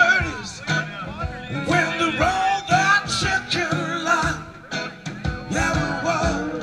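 Live band music: acoustic guitars strummed in a steady rhythm with a male voice singing lead.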